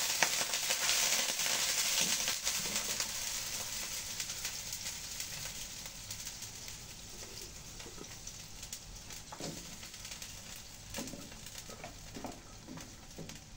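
Food sizzling in a hot pan: a loud sizzle that gradually dies down, with a few light knocks of a utensil in the second half.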